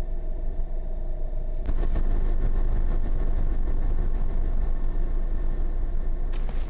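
Steady low engine-like rumble with a thin hum on top; about two seconds in the sound grows fuller and a little louder, then holds steady.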